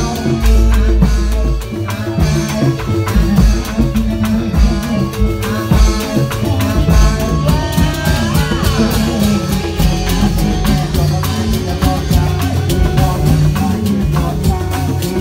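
Loud music with steady drumming and a pitched melody line, with some singing over it.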